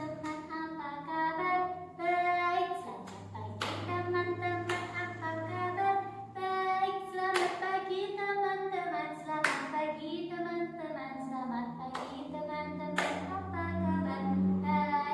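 A woman and children singing a rhythmic clapping chant, with sharp hand claps punctuating the lines every second or two.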